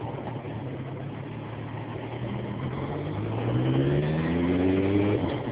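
Suzuki Bandit 1200S inline-four engine idling, then revving up with rising pitch as the bike pulls away and accelerates; the pitch drops back near the end.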